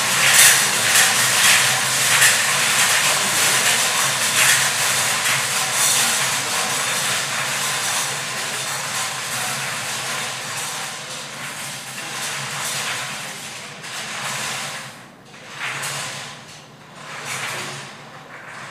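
Numbered lottery balls rattling and tumbling inside three hand-cranked metal wire-cage drums, a dense continuous clatter. It fades gradually as the cages slow, breaking into separate rattles in the last few seconds.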